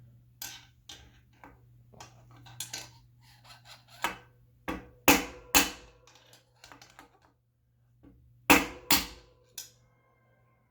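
Hammer striking a screwdriver to knock an old headset cup out of a bicycle head tube: a run of sharp taps, with the hardest blows in two close pairs, each ringing briefly.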